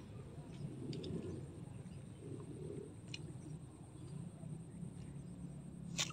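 Faint outdoor background with a few soft, low-pitched bird calls, and one sharp click just before the end.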